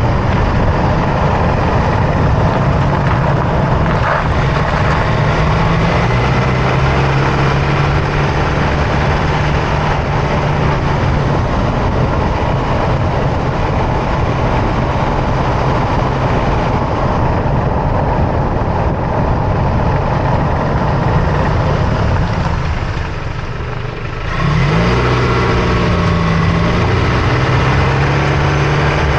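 Road and drivetrain noise of a 2024 Toyota Tacoma driving, heard close up from under the front end: tyre and road noise with the engine running. It eases briefly about 23 seconds in, then picks up again with a rising engine note.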